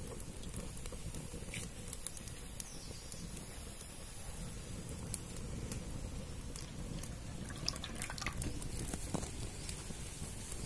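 Cooking oil poured in a steady stream from a plastic jar into a hot aluminium kadai, with a few faint crackles from the wood fire under the pan.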